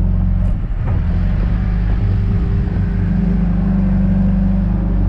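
John Deere 310G backhoe's diesel engine running steadily, with a brief dip in its note about a second in.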